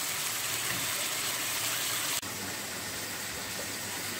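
Chopped onions, tomatoes and green chillies sizzling in oil in a frying pan: a steady hiss that drops abruptly in level about two seconds in.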